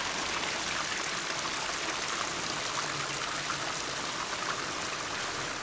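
Water of a small burn running over rock ledges and a little fall: a steady rush of flowing water.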